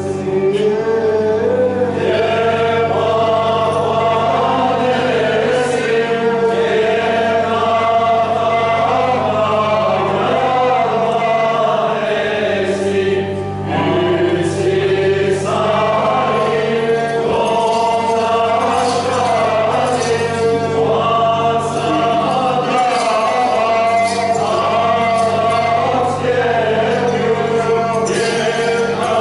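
Choir singing a slow Armenian liturgical hymn, the melody moving in long phrases over a steady, low sustained drone.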